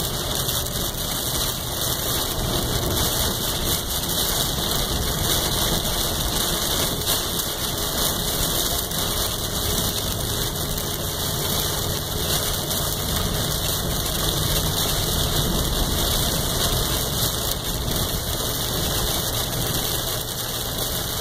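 Heavy rain on the windshield and roof of a Dodge Ram pickup, heard from inside the cab, over the truck's steady engine and road noise while driving through a thunderstorm.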